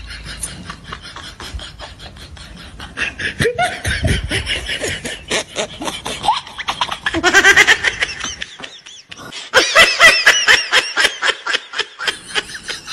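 People laughing in rapid repeated bursts, quieter at first and loudest over the second half.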